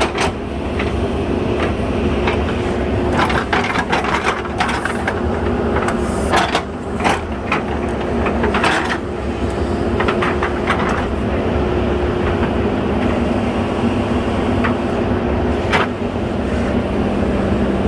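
JCB 3DX Super backhoe loader's diesel engine running steadily under work, with a scatter of sharp knocks and clatters between about three and eleven seconds in and one more near the end.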